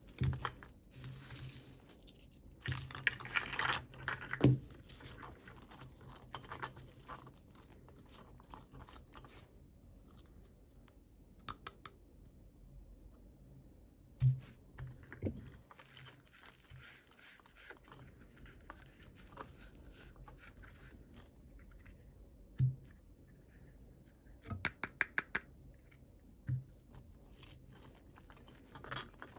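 Hands unwrapping and handling toy packaging. A burst of crinkling and tearing comes a few seconds in, followed by scattered clicks and light knocks of small plastic pieces, with a quick run of clicks near the end.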